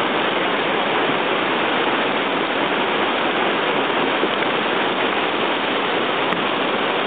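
Whitewater rushing steadily through a river rapid, an even, continuous wash of moving water.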